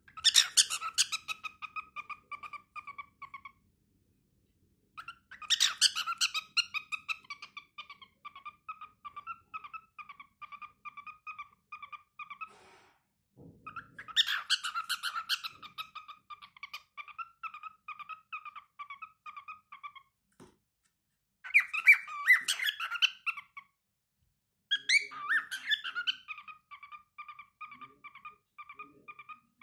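A six-month-old lutino cockatiel singing. It gives five phrases, each opening with a loud harsh note and running on into a long string of quick, even chirps, with short pauses between phrases.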